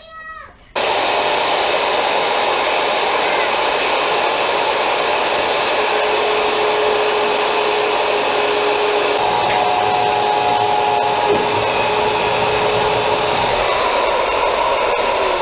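Handheld router switched on about a second in and running steadily as it cuts a small square opening in a plastic kayak hull.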